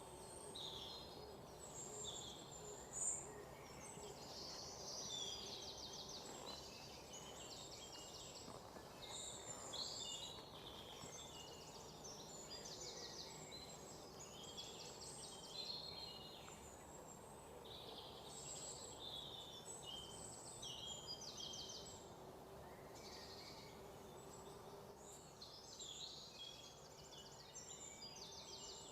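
Birds chirping and trilling, many short high calls one after another throughout, over a faint steady hum.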